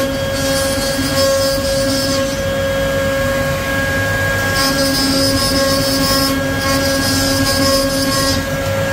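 CNC wood-carving router running, its spindle giving a steady high whine. A hiss from the bit cutting into the wood comes and goes in stretches of about two seconds as the machine works through its passes.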